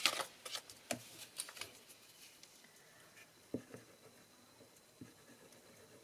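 Card and paper pieces being handled and slid on a craft mat: quick soft rustles and clicks for the first two seconds, then a few faint taps as a glue roller is put to the paper.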